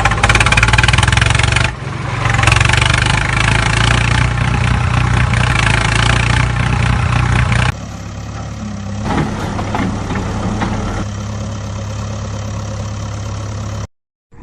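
A motor or engine running steadily with a low, even hum. About eight seconds in it cuts to a quieter, different engine sound. The sound drops out completely just before the end.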